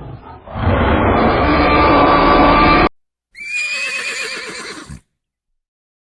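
A loud, rough, noisy animal sound that cuts off abruptly just under three seconds in. After a short gap comes a horse whinnying for under two seconds, its high pitch quavering.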